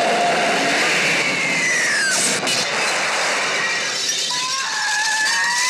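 Horror-trailer sound effects: a hissing rush with a falling whine, a sharp crash a little past two seconds in, then a shrill whistle-like tone held from about four seconds in.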